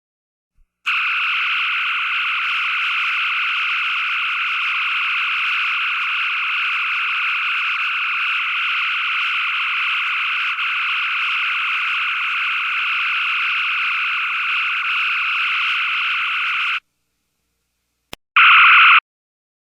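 Synthesized sci-fi electronic sound effect: a steady tone held for about sixteen seconds that cuts off suddenly. After a pause comes a click, then a short, louder burst of the same tone.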